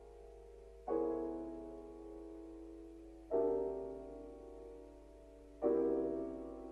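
Slow piano chords, three in all, struck about every two and a half seconds and each left to ring and fade.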